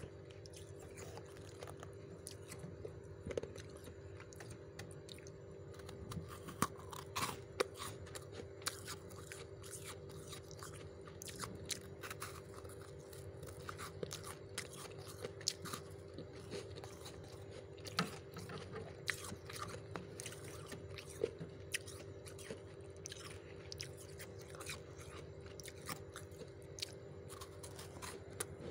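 Soft freezer frost crunching in irregular crisp bursts, with a steady low hum underneath.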